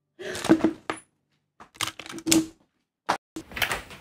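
Irregular clattering and knocking: a quick run of short clicks and knocks, a pause, another cluster, then a denser run near the end.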